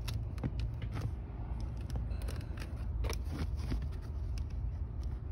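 Pleated cabin air filter being pressed and worked into its plastic tray: irregular sharp plastic clicks and paper crinkles, over a steady low rumble.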